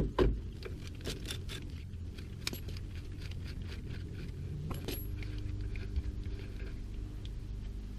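Irregular metallic clicks and clinks of hand tools working on the steering linkage bolts, over a faint steady low hum.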